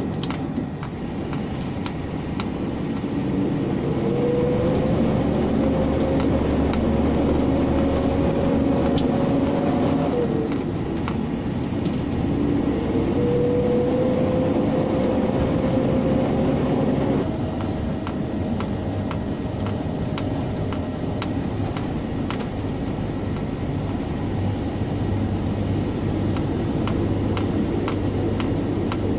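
Scania G460 truck's diesel engine and road noise heard inside the cab while hauling a heavy load at highway speed: a steady drone and rumble with a whine that climbs slowly in pitch and drops suddenly twice, about ten and seventeen seconds in.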